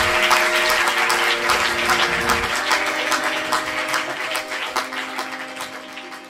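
Audience applauding over music with a few held notes. Both fade out steadily toward the end.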